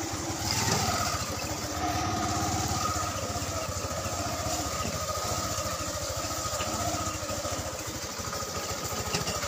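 Motorcycle engine of a tricycle (motorcycle with sidecar) running steadily on the move, a rapid even putter heard from inside the sidecar.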